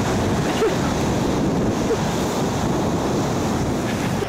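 Ocean surf washing, with wind rushing on the microphone in a steady noise.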